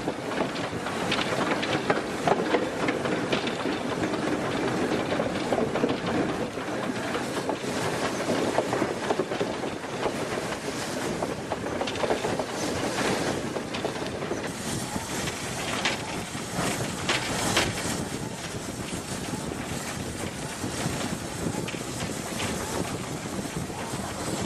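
Steam locomotive running along the track: a steady clatter of wheels and running gear, with many short sharp clanks.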